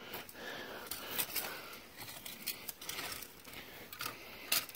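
A rake scraping and rustling through leaves, twigs and litter on a forest trail, in irregular strokes.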